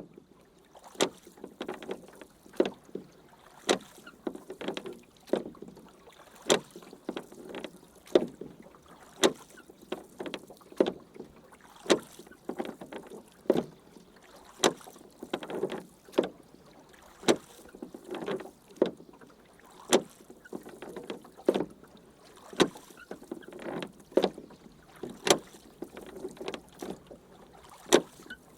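Rowboat being rowed with oars: a steady rhythm of strokes, each with a sharp knock and a swishing splash of water, about one stroke every second and a half.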